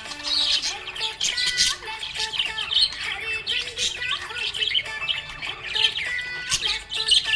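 Several budgerigars chirping, squawking and warbling at once, a busy, continuous chatter of quick overlapping calls.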